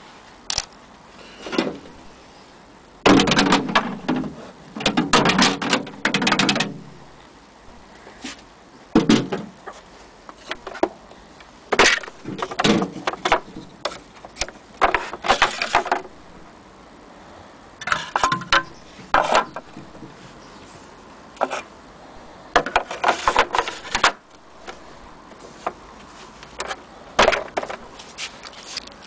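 Handling noise of a Singer electric sewing machine: irregular knocks, clicks and rattles in short clusters as the machine is touched and shifted about. The motor is not running.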